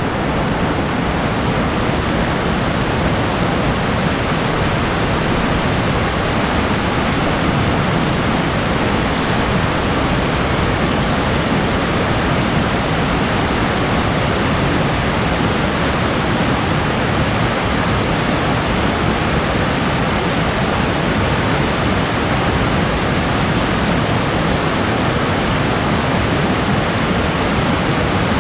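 A rocky mountain stream rushing over boulders in small cascades, a loud, steady roar of water.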